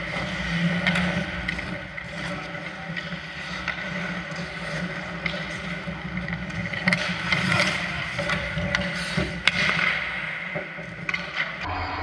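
Ice hockey play: skate blades scraping and cutting on the ice, with a few sharp clacks of sticks and puck, over a steady hum of the rink.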